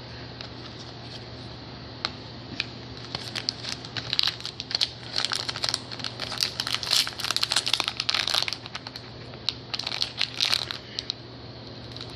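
Trading-card pack wrapper crinkling and tearing in quick irregular crackles as the pack is worked open by hand, the pack proving hard to open. The crackling starts about two seconds in and dies down near the end.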